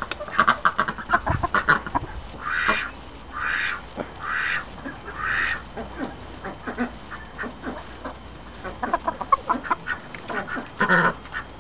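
White domestic duck calling: a run of quick, soft calls, then four raspy quacks about a second apart, then scattered short calls and a louder quack near the end.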